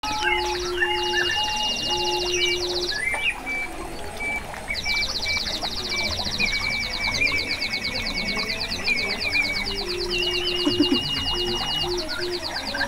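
Water-powered whistles imitating birdsong: fast high trills, warbling calls and steady piping notes at several fixed pitches, overlapping, over the splash of running water.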